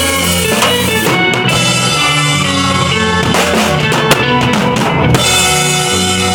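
Drum kit played along with looped sustained instrument lines, bass drum and snare over held low notes, with a busy drum fill from about halfway through to near the end.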